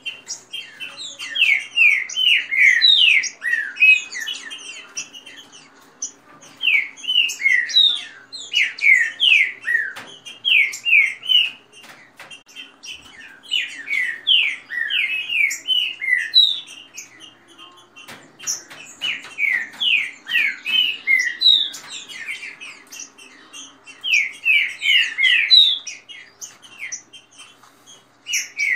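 Caged green-winged saltators (trinca-ferro) singing fast songs: quick runs of loud whistled notes that mostly slide downward, in bouts of a few seconds with short pauses between.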